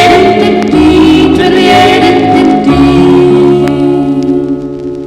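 Closing bars of a song by a family vocal group, with several voices singing together over instruments, ending on a held final chord that fades away over the last second or so.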